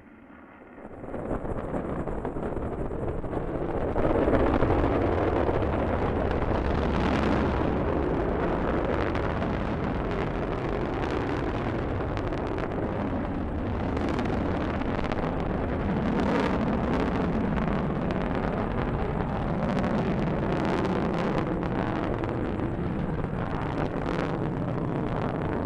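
Delta rocket's engines firing at liftoff: a loud, steady rushing rumble with crackle through it. It swells in over the first few seconds, then holds.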